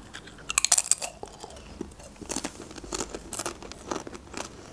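Thin crispy long chips bitten and chewed: one loud crunching bite about half a second in, then irregular crisp crunches as they are chewed.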